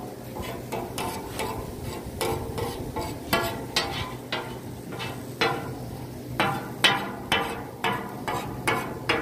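Metal ladle and slotted skimmer scraping and clanking against a large flat griddle (tawa) as meat pieces and vegetables are stirred, in a steady run of strokes about three a second, each with a short metallic ring.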